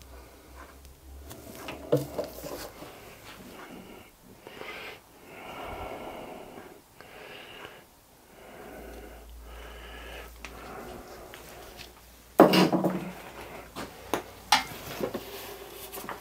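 Heavy breathing in and out while thick steam oil is poured slowly and almost silently into a metal lubricator oil pot. About twelve seconds in there is a loud clatter as something is put down, followed by lighter knocks and rag-wiping noises on the pot.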